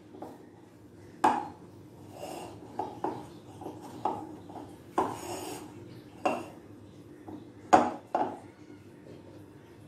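Hands kneading soft, sticky bread dough in a glass bowl: irregular slaps and knocks of dough and hands against the glass, a dozen or so, loudest about a second in and near eight seconds.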